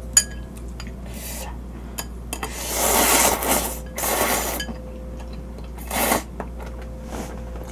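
Spicy seafood noodles (jjamppong) slurped from a small bowl in three noisy draws, the first and longest about a second long. A sharp clink of tableware comes just at the start, with light utensil ticks in between.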